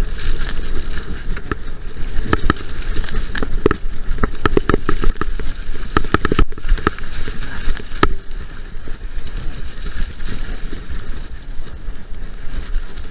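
Mountain bike rolling fast down a leaf-covered dirt trail: a steady rumble of tyres and wind on the camera's microphone, broken by frequent sharp rattles and knocks as the bike goes over bumps, thickest around four to five seconds in.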